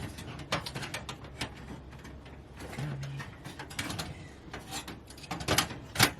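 Scattered clicks and knocks of items being handled and set down, with two sharper knocks near the end.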